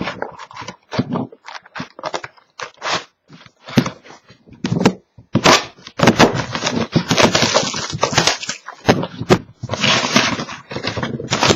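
Plastic shrink wrap on a sealed trading-card box being torn open and handled: scattered sharp crackles, then dense continuous crinkling from about six seconds in.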